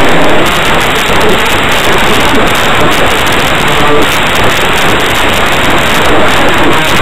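Loud, steady hiss of static-like noise, with faint traces of a voice underneath.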